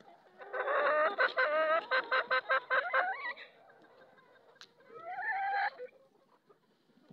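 Hen clucking in a fast run of calls for about three seconds, then one longer call about five seconds in. The hen is in the middle of laying an egg.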